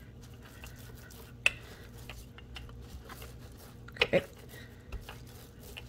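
Wooden rolling pin rolled over floured seitan dough on a wooden board: faint squishing and crackling with scattered light ticks, a sharper click about a second and a half in and two quick knocks about four seconds in.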